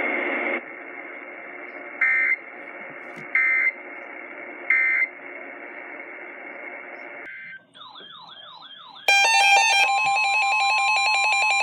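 Emergency Alert System end-of-message data bursts: three short buzzy digital tone bursts about 1.3 seconds apart, heard over radio hiss. After a few seconds of hiss, a warbling electronic tone rises and falls about 7.5 seconds in. From about 9 seconds a loud, steady electronic alert sounds, its buzzy tones switching pattern rapidly, ahead of a tornado warning.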